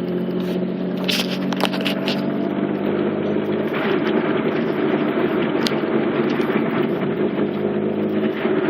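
Mitsubishi 3000GT VR-4's twin-turbo 3.0-litre V6 heard from inside the cabin, running at a steady engine speed while the car cruises, with a few light clicks about a second in.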